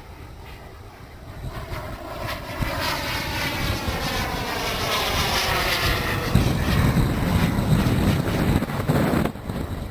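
Twin jet turbines of a scratch-built de Havilland DH110 model jet on a fly-past. They grow louder from about a second and a half in, with a sweeping, phasing tone as the model passes, and are loudest in the later seconds before dropping away near the end.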